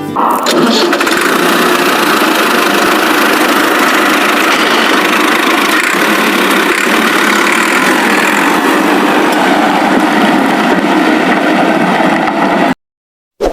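A small motor running steadily, then cutting off abruptly near the end.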